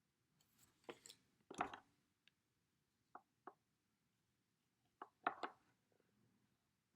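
Small plastic game pieces clicking and knocking against a plastic toy board as they are handled and fitted in: a few clustered taps, two short clicks, then another brief cluster.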